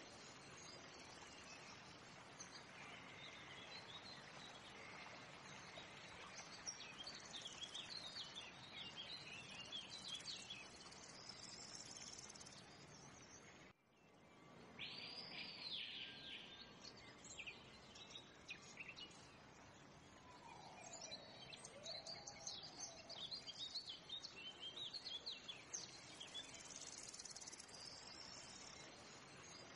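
Faint nature ambience: birds chirping and calling over a steady insect hiss. It cuts out briefly about fourteen seconds in, then resumes with a burst of repeated chirps and, a few seconds later, a lower whistled call.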